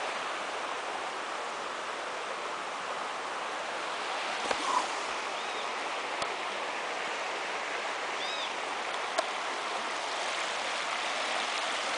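Shallow river running over stones and cobbles in a steady, even rush of water.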